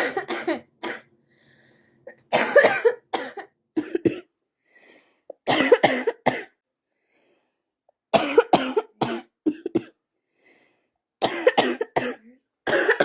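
A girl coughing in repeated fits, several coughs at a time, each fit a couple of seconds apart. She calls it a smoker's cough.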